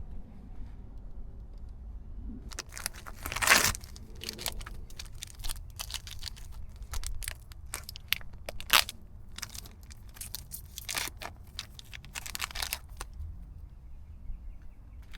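Irregular crinkling and rustling handling noise with scattered sharp clicks and snaps, loudest about three and a half seconds in and again near nine seconds.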